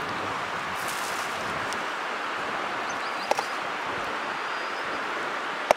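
Steady outdoor wind hiss, with two sharp taps, one about halfway and a louder one near the end, as balls of dough bait are set down on a steel plate.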